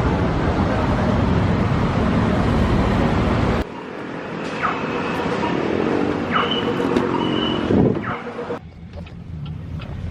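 Car on the move: steady road and engine noise. About three and a half seconds in it breaks off sharply into a quieter stretch with a few short squeaky glides in pitch.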